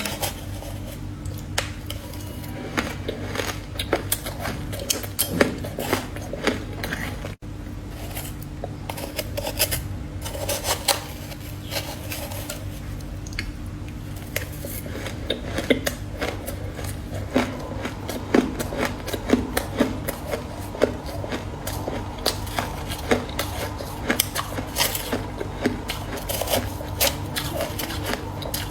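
Freezer frost being scraped and broken up with a utensil: dense, irregular crackling scrapes and clicks over a steady low hum, with a brief break about seven seconds in.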